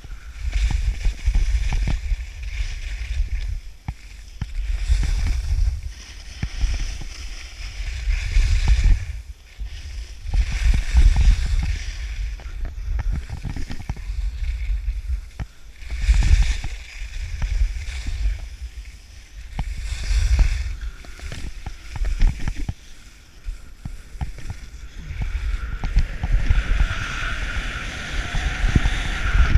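Wind buffeting an action camera's microphone during a downhill ski run, in repeated deep swells, with Head skis scraping and hissing over the groomed snow. The hiss grows steadier in the last few seconds.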